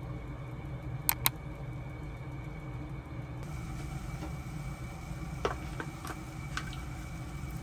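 Steady low hum of a stovetop in use while a pot of miso soup and salmon fillets cook, with a faint high whine. Two sharp clicks about a second in, and a few lighter ticks later on.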